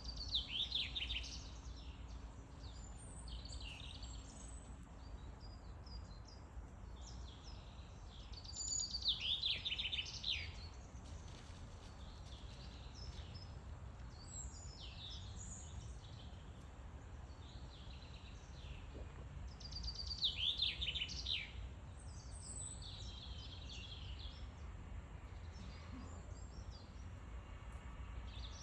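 Forest songbirds singing: one bird repeats a short descending song phrase about every ten seconds, with other birds chirping in between, over a steady low rumble.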